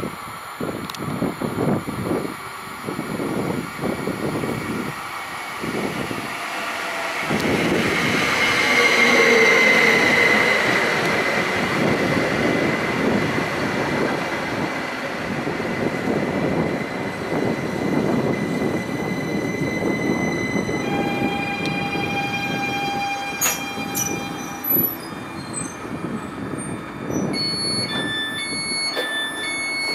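Südostbahn electric train pulling in along the platform: a pulsing rumble of wheels on the rails, then a high squeal loudest about nine seconds in. From about two-thirds of the way through come steady electrical tones and a run of short, high beeps.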